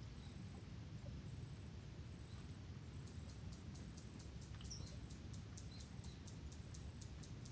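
Faint high-pitched insect chirps repeating about once a second, with quick clicking joining in about three seconds in.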